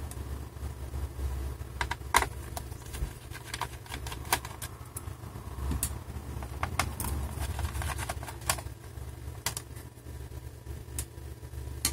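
Scattered light clicks and taps of a small screwdriver and small screws against a laptop's metal and plastic palm-rest frame during disassembly, over a steady low hum.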